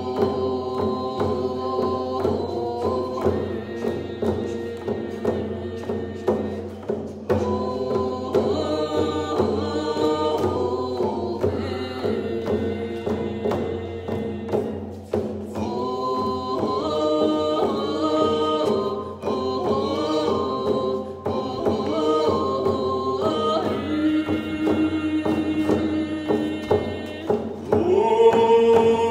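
A group of voices singing a Coast Salish song in unison, accompanied by hand-held frame drums struck in a steady beat. The singing grows louder near the end.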